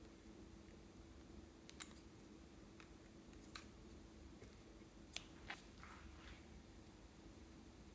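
Faint clicks and soft snips of small scissors cutting lipstick sticks into pieces, about five scattered strokes, over a low steady hum.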